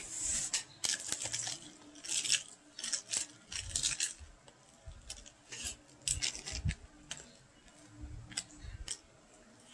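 Long metal spoon stirring halo-halo in a tall plastic cup: irregular scraping and clinking against crushed ice and the cup wall.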